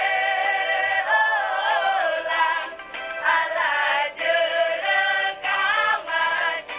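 School choir singing, mostly young female voices, with notes held and gliding in pitch and short breaks between phrases.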